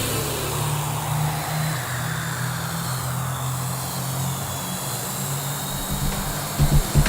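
Parrot AR.Drone quadcopter rotors running steadily in flight, a hum that shifts pitch a few times as the drone is steered.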